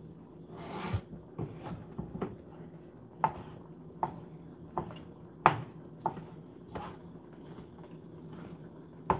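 Chef's knife chopping shredded chicken on a plastic cutting board: a string of sharp knocks as the blade strikes the board, irregular and about one every half second to a second.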